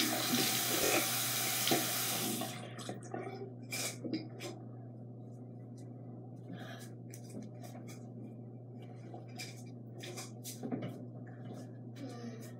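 Bathroom sink tap running, turned off about two seconds in, followed by scattered light clicks and rustles of small items being handled at the counter.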